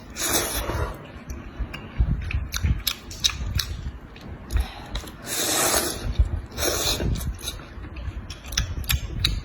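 Close-up eating sounds: chewing with many sharp crunches and cracks, and two longer noisy stretches, one at the start and one about five seconds in.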